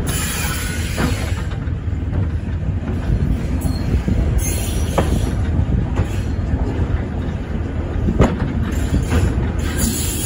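Train running slowly along the track: a steady low rumble with a few sharp knocks from the wheels passing over the rails.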